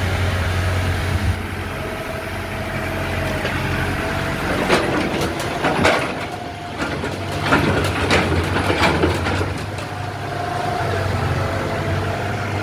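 Backhoe loader's diesel engine idling with a steady low hum, with a string of sharp knocks and rattles about halfway through.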